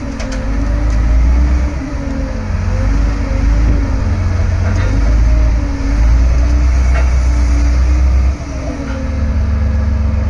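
Komatsu HD605 rigid dump truck's diesel engine running at raised, wavering revs while the dump body is lowered. About eight seconds in it drops back to a steady idle.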